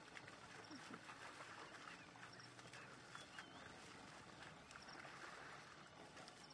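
Faint splashing and hoof steps of African buffalo wading through a shallow muddy stream, with a few brief high chirps.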